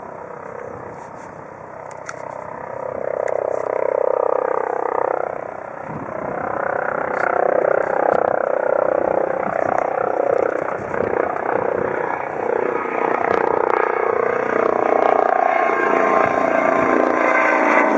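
Eurocopter EC135 twin-turbine rescue helicopter approaching in flight, its rotor and turbine sound rising in level over the first few seconds and then staying loud and steady.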